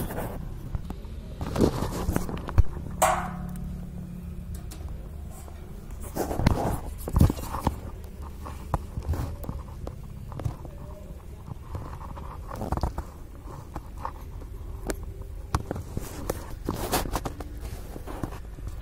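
Scattered clicks, scrapes and knocks of hands working a satellite dish's metal mount and a tape measure held against its elevation scale, over a steady low rumble.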